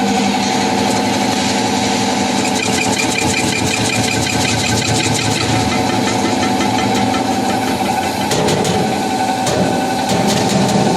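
Nut slicing machine running with a steady motor hum, a fast even ticking from about two seconds in to about seven, and a few sharp clicks near the end.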